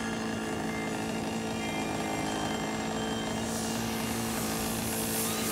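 Radio-controlled model aircraft engine running steadily in flight, a constant drone that holds its pitch.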